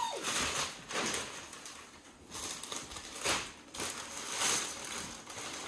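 Gift wrapping crinkling and rustling in irregular bursts as a present is unwrapped.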